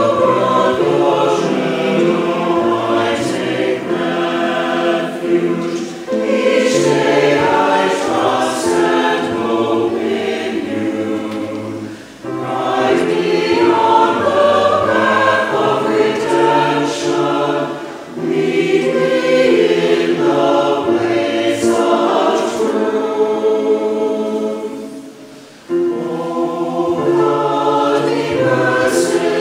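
Mixed-voice church choir singing a sacred anthem in harmony, in sustained phrases of about six seconds with brief breaths between them.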